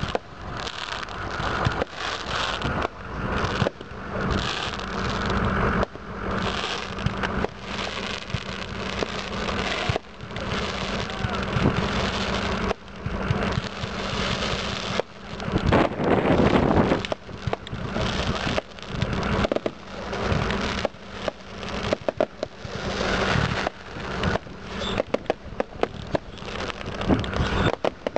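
Multi-shot fireworks cake firing in quick succession: a dense, unbroken string of launch thumps, bangs and crackling bursts, busiest about halfway through.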